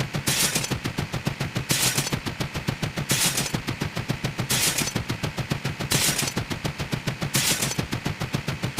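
Sound effect of rapid machine-gun-like fire: a fast, even string of sharp shots, about eight a second, with a burst of hiss about every second and a half.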